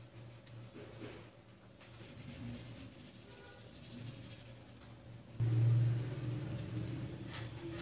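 A low steady hum, which suddenly comes up much louder about five and a half seconds in.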